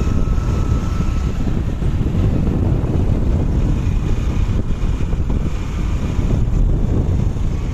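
Steady wind noise rumbling on the microphone of a moving motorcycle, with its engine running underneath.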